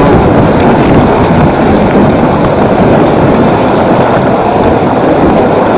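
Fast-flowing open water of the Zanskar River rushing past the edge of the ice: a loud, steady rush of water.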